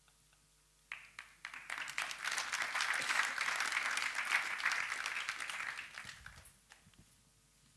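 Audience applauding. A few claps start about a second in, swell into full applause, then die away with a few last scattered claps near the end.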